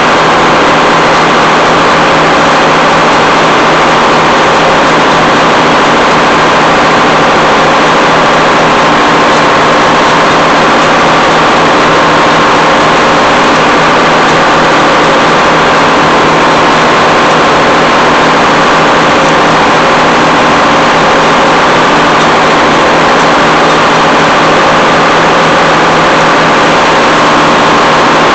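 Detroit Diesel 6-71 two-stroke inline-six diesel running steadily at speed, loud and unchanging, with a steady low tone under a dense, raspy engine noise.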